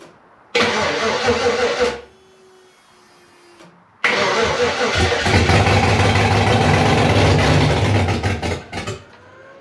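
Freshly rebuilt 5.3-litre V8 on its first start: the starter cranks it for about a second and a half, then after a pause cranks again and the engine fires and runs for about four seconds before stumbling and dying near the end.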